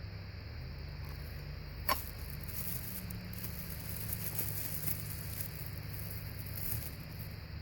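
Stainless steel knife chopping onion and mushroom, with one sharp knock a little under two seconds in, followed by soft crunching and scraping of the cut pieces, over a steady low rumble.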